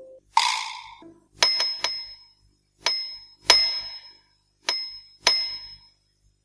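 Light music: a short swish, then six bright bell-like dings in an uneven rhythm, each ringing briefly and fading.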